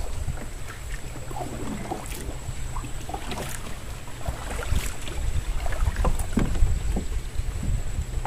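Single wooden paddle dipping and pulling through river water beside a small wooden boat, a stroke about every second and a half, over a steady rumble of wind on the microphone.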